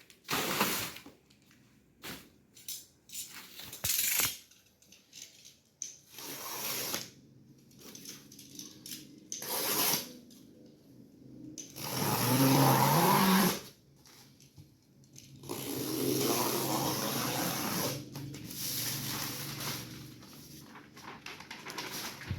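Flat-pack furniture box being opened and unpacked: tape and cardboard tearing, packaging rustling and parts knocking, with two longer, louder stretches of scraping and rustling.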